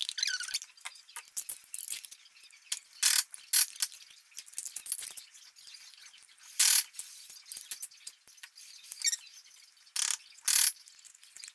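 Wooden spoon scraping soft cream cheese out of a plastic tub and knocking against the tub and a ceramic bowl: a run of irregular sharp clicks and scrapes, loudest about seven seconds in and again near ten seconds.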